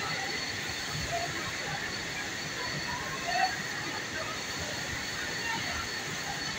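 Steady machinery noise of a garment factory floor, with faint voices in the background.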